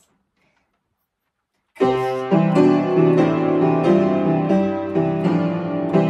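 Near silence for a couple of seconds, then an upright piano starts playing: repeated chords in the low register under a melody.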